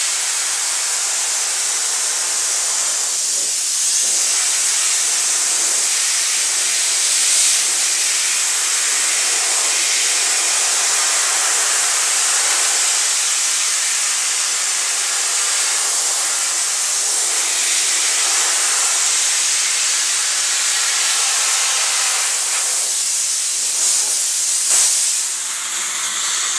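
Aerogommage (low-pressure abrasive blasting) nozzle hissing steadily as it blasts the finish off a wooden kitchen cabinet door, with a few short breaks near the end.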